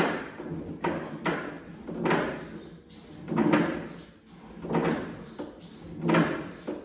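Kabuki Strength Kratos flywheel trainer with its medium disc in use, the flywheel spinning up and slowing with each pull of the strap. It makes a swelling whoosh that rises and fades about every second and a half.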